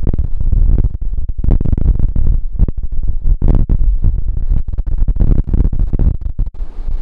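Ocean surf under strong wind buffeting the microphone: a loud, choppy low rumble that keeps cutting in and out.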